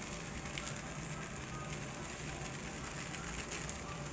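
Clear plastic transfer tape being peeled off a heat-pressed rhinestone design, a faint crackling rustle of the film over steady low background noise.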